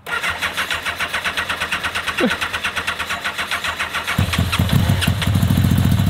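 1987 Yamaha FJ1200's inline four being cranked on the electric starter, a fast, even churning, then starting to fire unevenly about four seconds in. The fuel still carries water and rust from the tank, which makes it slow to start and run rough.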